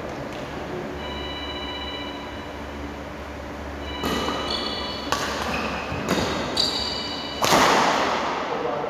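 Badminton rackets striking the shuttlecock in a rally, sharp hits about once a second from about four seconds in, the loudest near the end, with short squeaks of shoes on the wooden court floor.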